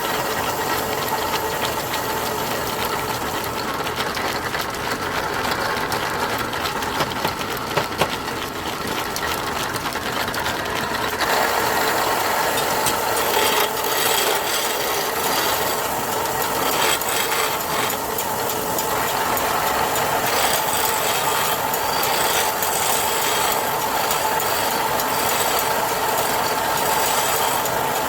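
Wood lathe running, a turning tool scraping and cutting a spinning wooden workpiece over the steady hum of the motor; the cutting grows louder about eleven seconds in.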